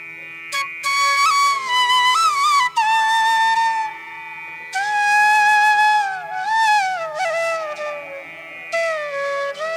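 Background music: a flute playing a slow melody with sliding ornaments between notes, in phrases a few seconds long, over a steady drone.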